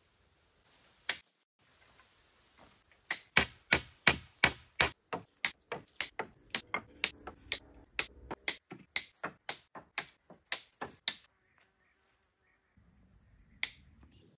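Rapid, evenly spaced sharp knocks of a tool striking wood, about three a second, starting about three seconds in and stopping near eleven seconds, with a single knock before and after.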